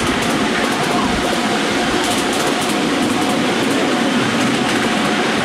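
A miniature BR class 31 locomotive and its ride-on carriages running steadily along the track: continuous wheel-on-rail rumble with a faint steady whine and a few light clicks.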